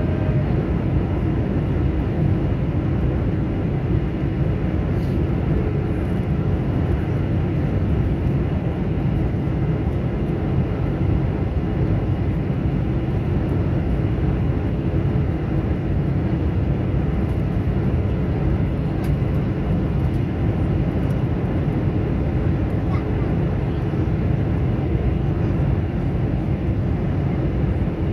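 Steady low cabin noise of an airliner in flight, engines and rushing air blending into one even rumble with no change in pitch or loudness.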